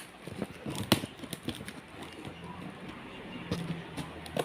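Packaging being opened by hand: tape and cardboard on a well-sealed parcel crackling and rustling, with scattered sharp clicks and one louder snap about a second in.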